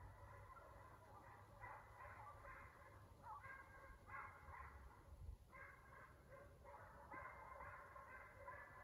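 Deer-running hounds baying faintly, in repeated bouts with short breaks.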